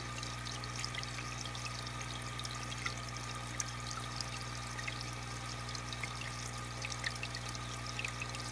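Aquarium water trickling and splashing steadily, with many small bubbling ticks and a steady low hum underneath.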